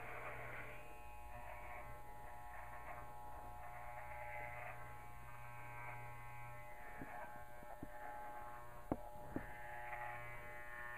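Electric dog clippers buzzing steadily as they shave a dog's heavy coat, with a couple of short clicks about nine seconds in.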